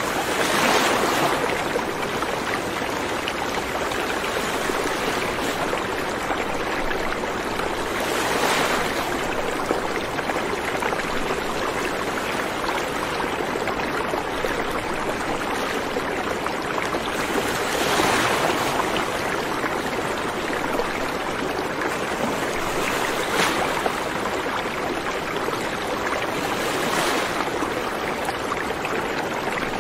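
Steady rushing noise like running water, swelling louder for a moment a few times.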